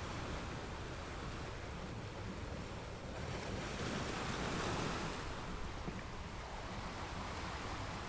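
Ocean waves washing in a steady hiss of surf, with one wave swelling louder about three seconds in and falling away again about two seconds later.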